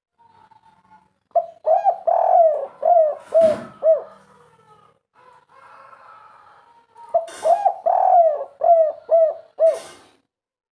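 Spotted dove (tekukur) cooing its kuk-3 song: two phrases of about six quick, repeated coo notes, one starting about a second and a half in and another about seven seconds in.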